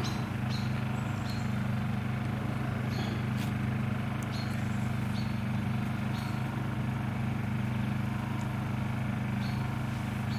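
An engine running steadily at idle: a low, even hum that does not change, with faint scattered ticks over it.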